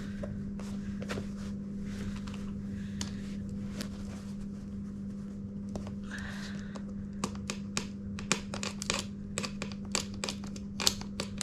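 Clicks, knocks and rattles of a metal release key being worked in the base plate of a detachable roller skate, trying to unlock the shoe from the plate. The clicks come thick and fast in the second half, over a steady low hum.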